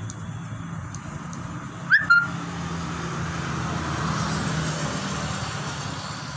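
Low, steady hum of a motor vehicle running, swelling and fading again a little after the middle, with two sharp, short high-pitched chirps about two seconds in.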